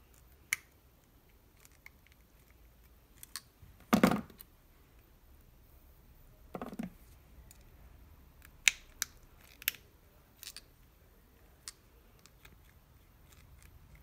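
Hand crimping pliers squeezing brass spade terminals onto the ends of a short wire: scattered sharp clicks, with a louder crunch about four seconds in and a run of clicks in the second half.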